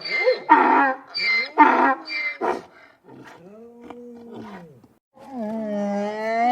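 A donkey braying: a run of loud, rapid hee-haw cycles for the first two and a half seconds, a quieter arched wheezing call, then a long drawn-out call that begins about five seconds in and rises in pitch near the end.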